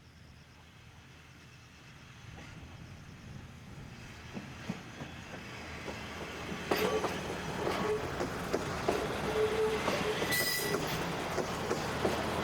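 Kominato Railway diesel railcar approaching and growing steadily louder, its engine droning and its wheels clicking over the rail joints. Brief high squeals from wheels or brakes come in the second half.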